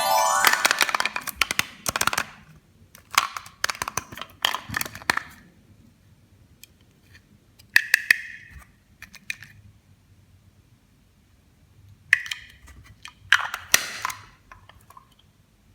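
Plastic toy pieces and packaging being handled: sharp clicks and snaps with short crinkling rustles, coming in several separate bursts, with a few brief squeaky tones. A short musical sound dies away about half a second in.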